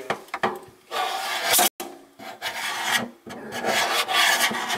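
Rough rasping, rubbing noise coming in several irregular strokes of half a second to a couple of seconds, cut by a brief dropout a little under two seconds in.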